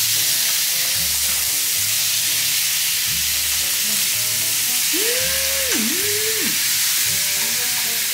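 Food sizzling steadily on a hot tabletop grill plate, over background music.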